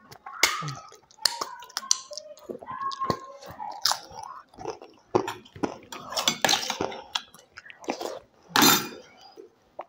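Close-up eating sounds picked up by a lapel microphone: chewing with wet mouth noises and many short, sharp crunches of crisp food such as papad. Near the end, as a spoonful goes into the mouth, there is one louder noisy burst.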